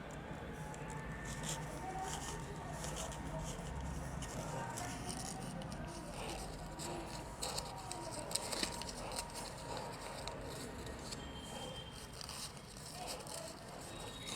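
Sheets of paper rustling and crackling as they are handled and creased in folding, with short scattered crinkles over a low steady hum.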